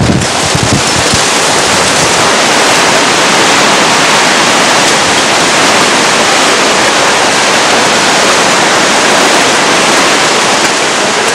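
Hurricane-force wind and heavy rain: a loud, steady rushing noise, with gusts buffeting the microphone in low thumps in the first second.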